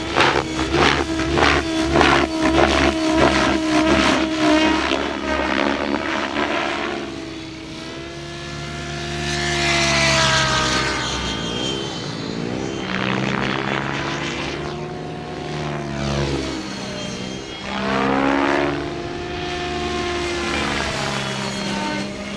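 Gaui X7 radio-controlled helicopter in flight. Its rotor blades beat in quick, even pulses for the first several seconds, then its whine rises and falls in pitch twice as it swoops past.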